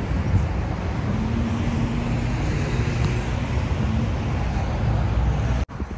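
Steady road traffic noise, a low rumble with a faint engine hum from passing vehicles, breaking off abruptly near the end.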